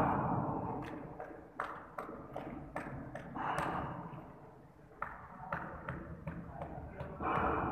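Irregular sharp taps and knocks echoing in a large bare concrete room, with swells of louder, rougher noise at the start, in the middle and near the end.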